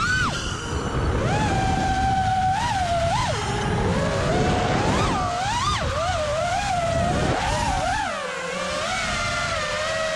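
FPV quadcopter's brushless motors whining, the pitch rising and falling again and again as the throttle is worked, over a rush of wind noise.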